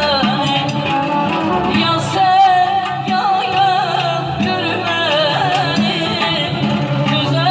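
Music with a voice singing a wavering, ornamented melody over repeated bass notes.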